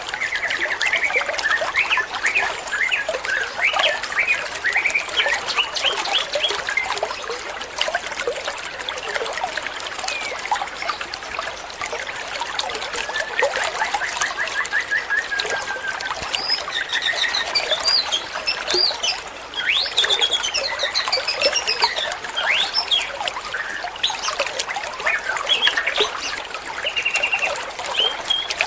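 Bulbul (trucuan) song: many short chirps and warbled phrases, one after another, over a steady trickle of running water.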